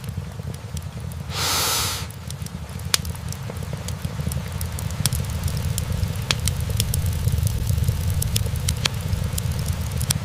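Wood fire burning in a fireplace: logs crackling with scattered sharp pops over a steady low rumble of the flames. A brief hiss about a second and a half in.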